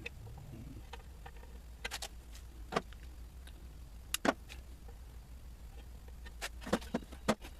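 Scattered light clicks and taps, a few at a time, over a faint steady low hum: small handling noises of tools and parts being worked on.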